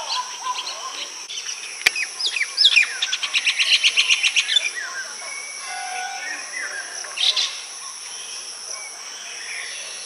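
Baya weavers chirping at the nest colony, with a fast run of rapid, even chirps in the middle, the loudest part. One sharp click about two seconds in, and a steady high hum throughout.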